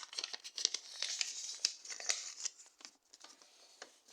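A paper sheet being folded and creased by hand, crinkling and rustling in quick clicks, busiest for the first two and a half seconds, then thinning to a few faint rustles.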